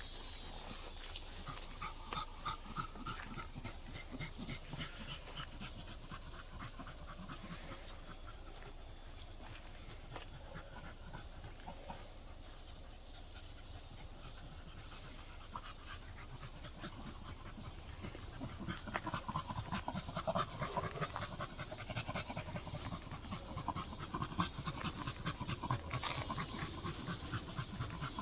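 Dogs panting rapidly and steadily, louder in the last third.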